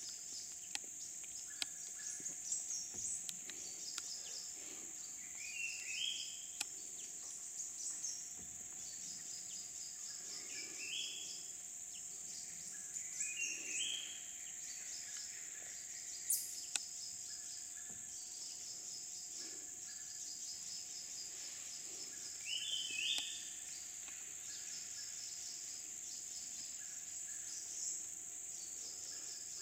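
Steady high-pitched drone of rainforest insects, with a bird giving a short rising call about five times.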